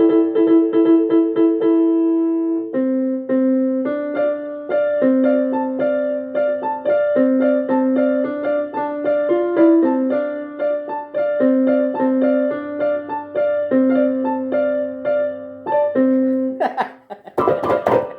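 A quick tune of sustained, keyboard-like electronic notes, stepping back and forth between a low and a higher pitch. The notes stop near the end and give way to a short burst of noise.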